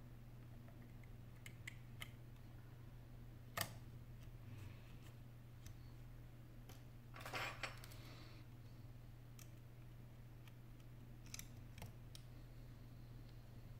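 Sparse faint clicks and taps of fingers handling the internals and connectors of an opened iPhone 8 Plus, with a sharper click about three and a half seconds in and a short scraping rustle around the middle, over a steady low hum.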